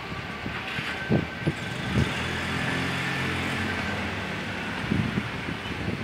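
Strong wind gusting against the microphone in low buffeting thumps, while a motor vehicle's engine hums past on the street from about two seconds in until about four and a half.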